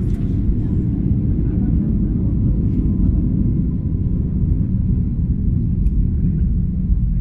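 Steady low rumble of an Airbus A320's jet engines and airframe heard inside the passenger cabin, with a faint steady whine over it.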